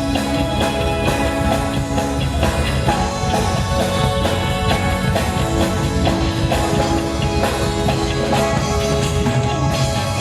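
Rock band playing live with drum kit and electric guitar, steady beat, no singing heard.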